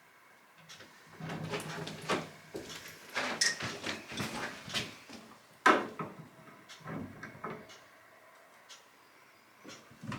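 Shower head being handled and threaded onto the shower arm: irregular scraping and clicking, with one sharp click about halfway through.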